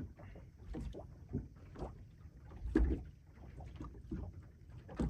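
Small waves slapping and knocking against the hull of a boat at anchor in a light chop: irregular splashes and thumps, one louder thump a little past halfway.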